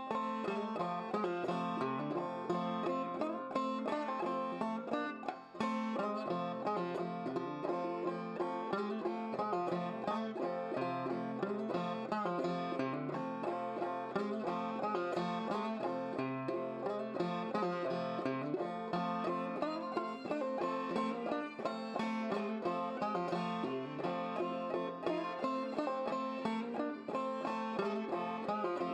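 Old-time banjo music, a quick run of plucked notes played without a break.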